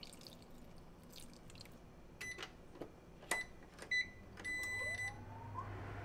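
Induction cooktop's touch controls beeping: three short beeps about two, three and four seconds in, then a longer beep as the hob switches on. A low hum from the heating hob follows under the enamel pot.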